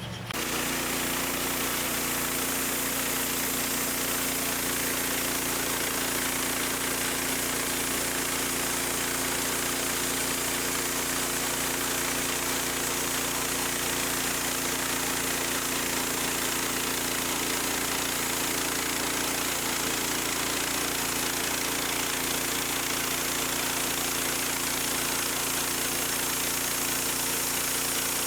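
A home-built sawmill's engine running steadily with a constant pitch.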